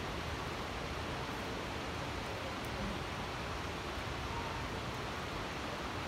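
Steady rain falling over a city, an even unbroken hiss.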